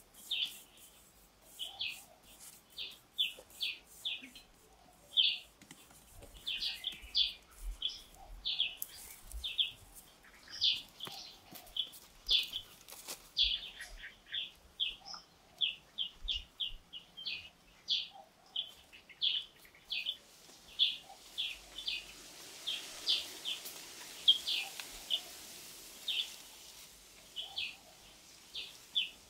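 A bird chirping over and over: short, sharp high chirps, roughly two a second in an uneven rhythm. A soft hiss rises and fades about two-thirds of the way through.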